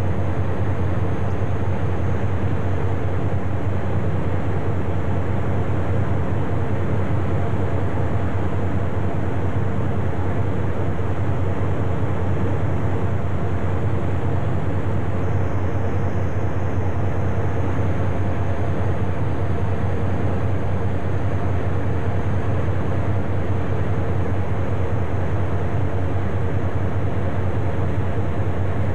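Tugboat's Nohab Polar diesel engine running steadily under way, a constant low drone.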